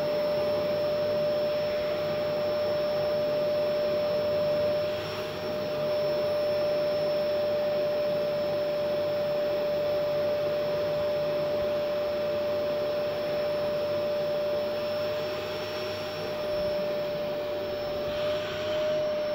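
Canister vacuum cleaner running steadily: a constant whine over the rush of suction air.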